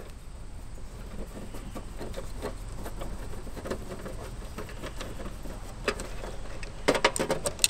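Screwdriver backing out the screws that hold an air-conditioner contactor to the condenser's sheet-metal panel: irregular small clicks and scrapes, with a few sharper clicks near the end.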